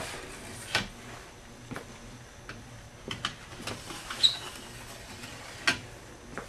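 Ski wax brush working the edge of an alpine race ski in short strokes, heard as irregular scratchy clicks about once a second, the sharpest a little past the four-second mark. It is clearing leftover wax off the edge.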